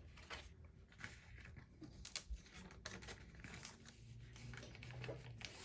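Faint rustling and a few light taps of paper and packaging being handled.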